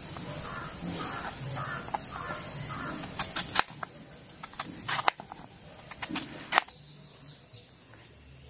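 Kitchen knife cutting through watermelon onto a plastic cutting board, with sharp knocks as the blade hits the board: a cluster about three and a half seconds in, more near five seconds and one near six and a half. Crows caw in a quick repeated run over the first three seconds or so.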